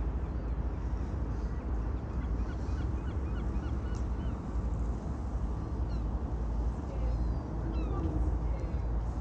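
City street ambience: a steady low rumble of traffic, with birds chirping in short calls over it, in a cluster a few seconds in and again near the end.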